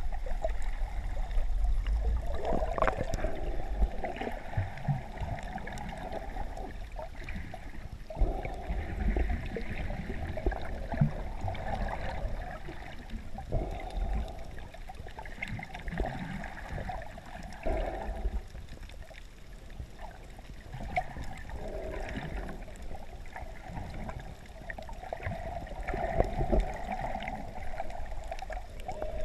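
Muffled underwater water noise heard through a GoPro's waterproof housing. Water swishes and gurgles against the camera as it moves, over a low rumble, swelling and fading every few seconds.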